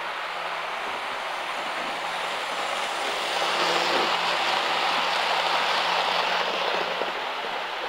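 Model Midland Mainline HST train running past on a model railway track. Its running noise swells from about three seconds in and fades again near the end.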